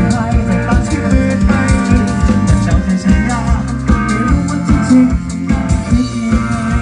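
A band playing music, with guitar and a drum kit keeping a steady beat.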